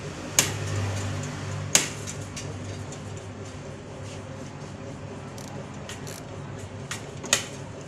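Metal hand tool clicking and knocking against the ignition coil fittings on a Honda City engine: three sharp clicks stand out, one near the start, one about two seconds in and one near the end, with fainter ticks between them over a steady background hum.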